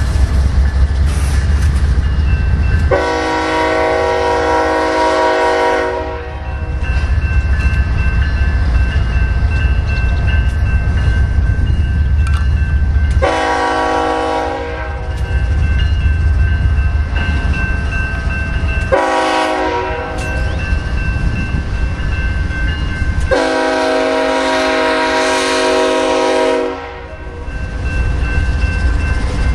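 BNSF diesel locomotive's air horn sounding the grade-crossing signal as the train approaches the crossing: four blasts, the first and last the longest. Under it runs the steady low rumble of the locomotives' diesel engines.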